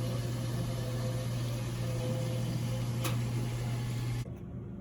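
A machine running with a steady electrical hum and hiss, which cuts off suddenly about four seconds in.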